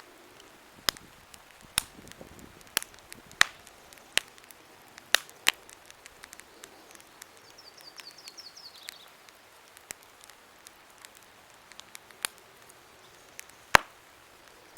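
Wood campfire crackling: sharp, irregular pops about once a second over a faint hiss, with one especially loud pop near the end.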